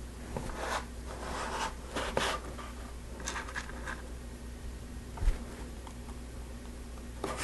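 Plastic Lego pieces being handled and pressed together, making scattered light clicks and rustling at irregular moments.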